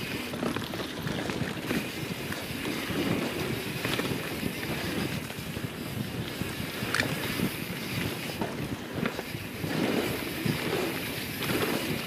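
Wind rushing over an action camera's microphone while a YT Jeffsy mountain bike rolls fast down a dirt trail. Its tyres run on the ground and the bike rattles with many small knocks and clicks.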